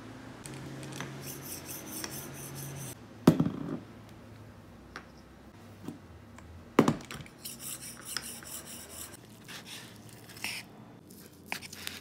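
Tumbler rolling sharpener's stainless steel helix hone rolled back and forth along a carbon steel knife edge, a gritty rasping rub in two spells, one on each side of the blade. Two sharp knocks, about three seconds in and near seven seconds, are the loudest sounds; short crisp clicks follow near the end.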